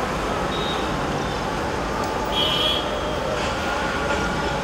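A steady engine rumble, with a brief high-pitched squeal about two and a half seconds in.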